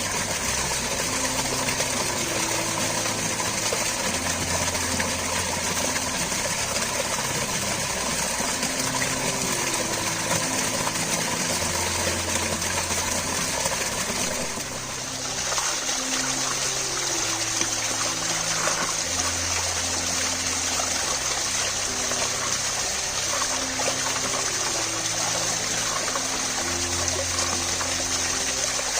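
Steady rush of running water, with a quiet background music melody beneath it; the water sound dips briefly and changes about halfway through.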